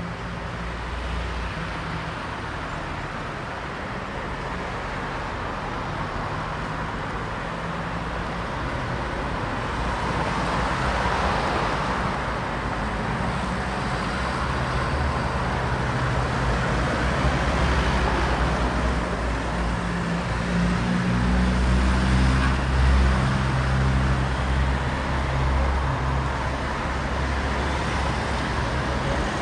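Street traffic in a city: cars and heavier vehicles passing with a steady hum of engines and tyre noise, one passing swell about a third of the way in and a deeper engine hum building in the second half.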